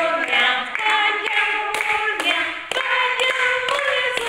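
A small group of voices, adults and children, singing a birthday song together without instruments while clapping their hands along with it.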